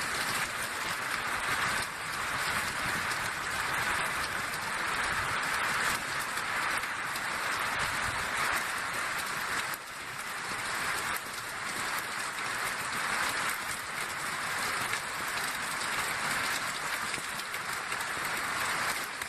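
Heavy rain pouring down, a steady, dense hiss with no break.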